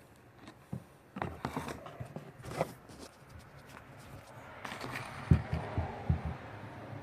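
Hands handling a carded diecast toy car: plastic packaging clicking and rustling in scattered bursts, then a few soft low knocks near the end.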